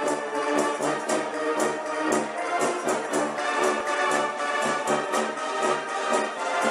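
Orchestral music led by brass instruments, with sustained chords over a regular beat.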